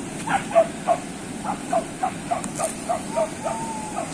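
A hunting dog yipping over and over, about three short, high yelps a second, with one longer drawn-out whine near the end.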